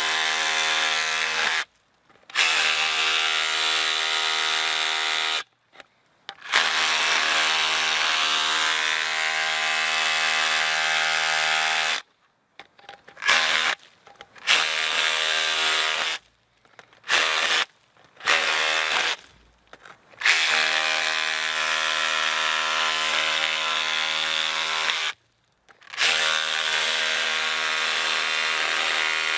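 Makita XRH01 18V cordless SDS-Plus rotohammer in hammer-only mode, chipping into old concrete with a steady buzzing hammer action. It runs in stretches of several seconds, stopping and restarting with a few short trigger blips in the middle.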